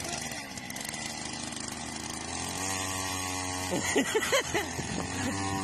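A small engine running at a steady pitch, growing clearer from about halfway through. A few short sounds that rise and fall in pitch come in about four seconds in.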